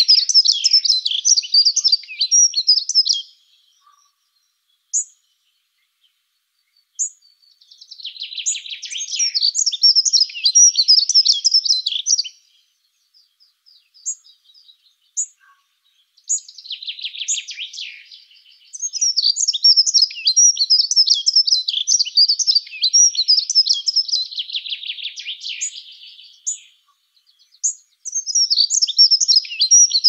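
Dunnock singing: repeated bursts of fast, thin, high warbling, each a few seconds long, separated by brief pauses with single short notes.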